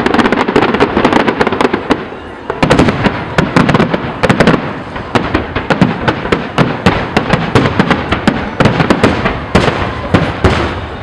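Fireworks display: a dense barrage of shell bursts and crackles, several sharp bangs a second, easing off briefly about two seconds in before picking up again.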